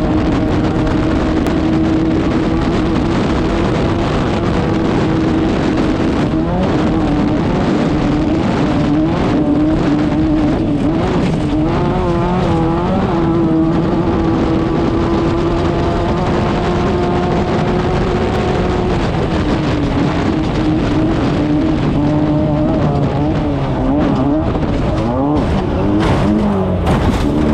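Class 5/1600 off-road race car's air-cooled 1600 cc VW engine running hard at high revs. Its pitch holds steady for long stretches and rises and falls with throttle and gear changes, over constant rattling and knocks.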